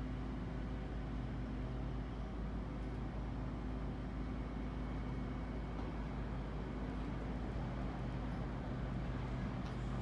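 Steady low drone of diesel train engines, from an HST's Class 43 power car approaching slowly and a train standing at the platform.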